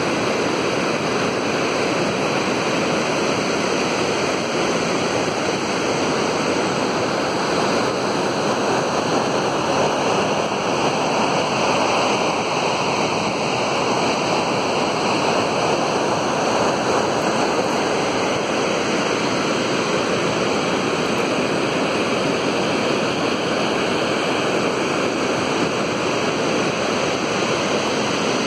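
Unchalli Falls, a tall waterfall in full flow, giving a steady, loud rush of falling water.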